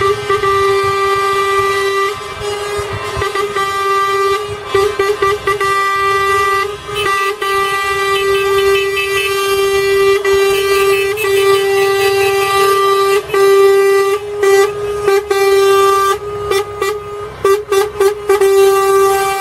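Several vehicle horns sounding together, held long and unbroken, with other horn tones layered over them. Near the end they break into a run of short, quick toots, with engine noise underneath.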